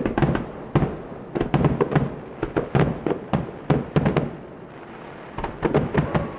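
Fireworks going off: a rapid, irregular string of sharp bangs and cracks, several falling in quick clusters, with a lull about five seconds in before a last burst.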